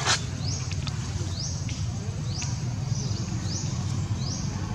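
A short, high, rising chirp from a small animal, repeated about once a second over a steady low rumble. A sharp click comes right at the start.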